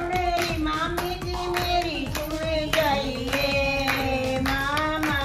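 Women singing a traditional North Indian wedding song together, with steady rhythmic hand claps keeping the beat.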